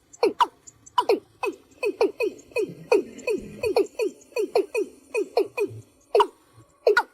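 Watercock calling: a quick series of short, downward-sliding notes, about three or four a second, crowding together in the middle and thinning out near the end. This is the watercock's flock-gathering call.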